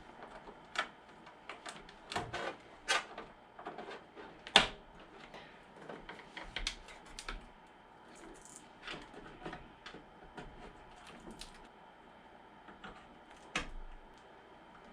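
Irregular small clicks and taps of hands working small plastic connectors and parts inside a PC case, such as pushing front-panel header plugs onto the motherboard pins. There is one sharper click about four and a half seconds in.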